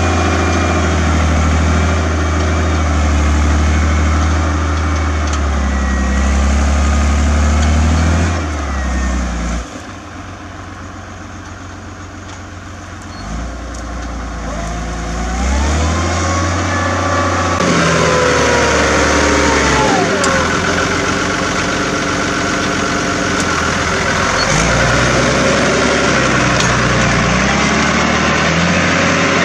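Agrifull 100DT tractor's diesel engine working under load as it pulls a five-shank subsoiler through the ground, with its loud exhaust note. The engine note rises and falls, and it runs much quieter for several seconds in the middle.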